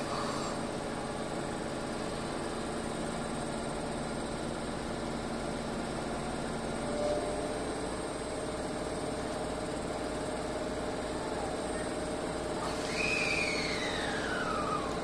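Parked Shizuoka Railway 1000 series electric train humming steadily, with its pitch changing about halfway through. Near the end a high whine falls in pitch over about two seconds.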